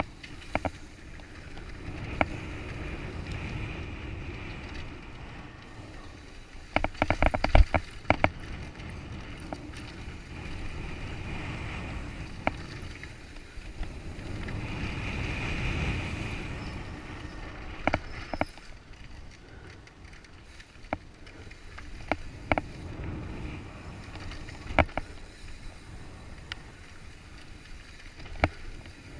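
Downhill mountain bike riding a dirt trail, heard up close: a steady rumble of the tyres over dirt with sharp rattles and knocks from the bike over bumps and roots, including a rapid run of loud knocks about seven seconds in.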